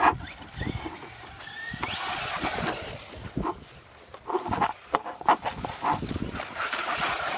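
Battery-powered remote-control car being driven hard: a short rising motor whine, tyres scrabbling over the ground, and repeated knocks and clatters as it spins out and bumps around.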